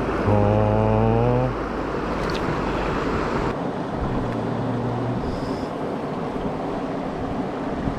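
Mountain stream rushing steadily. Just after the start a man gives a short low hum lasting about a second, and a fainter one follows near the middle.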